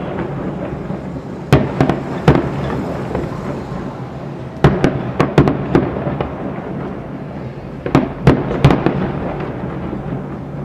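Aerial firework shells bursting: three rapid clusters of sharp bangs about three seconds apart, over a steady rumble.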